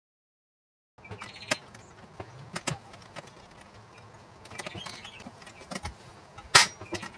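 Rivet tool being worked on a rivet that is too long for the job: a string of sharp clicks and creaks as the tool grips and pulls the rivet pin, with one much louder sharp click near the end.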